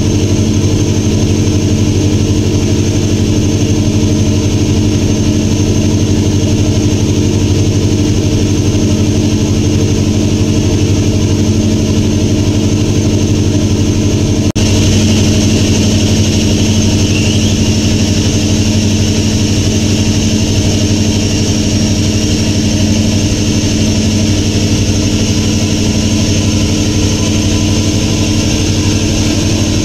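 Boat engine running steadily at cruising speed, a constant drone with the rush of water and wind over it; the sound breaks off for an instant about halfway through, then carries on.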